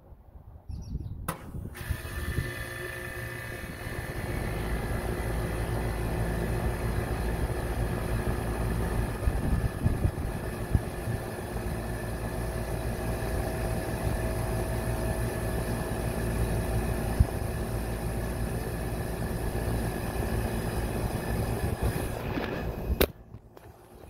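2003 Bryant central air conditioner's outdoor condensing unit starting up. A click about a second in, then the compressor and condenser fan come up to speed over a few seconds. It then runs with a steady hum and whir, carrying a few steady tones, until the sound cuts off abruptly near the end.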